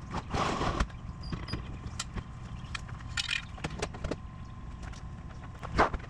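Footsteps crunching on gravel with scattered knocks and clatter, a few short scuffs standing out among irregular clicks.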